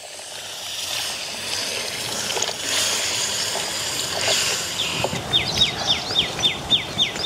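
Water pouring in a stream into a kadai of frying masala. From about five seconds in, a bird calls a quick series of short falling chirps, about four a second.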